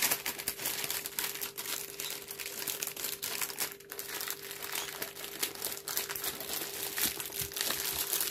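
Clear plastic packaging crinkling as it is handled around a rolled diamond painting kit, with a faint steady hum underneath.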